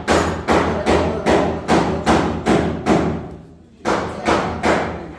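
Repeated heavy thuds at a steady pace of about two to three a second, with a short pause a little past halfway before they start again.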